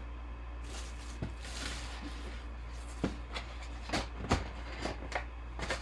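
Trading-card packs and cards being handled: a rustle, then a string of light knocks and taps, over a steady low hum.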